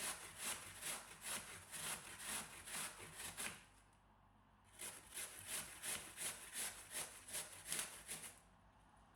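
An apple being pushed back and forth over a hand-held kitchen shredding tool, rasping strokes about two a second. The strokes pause for about a second near the middle, then resume and stop about a second before the end.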